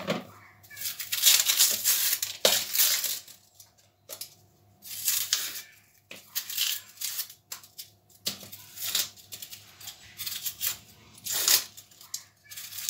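Dry papery onion skin being peeled off with a small kitchen knife: crackling, tearing bursts come and go irregularly, with a few light clicks of the knife.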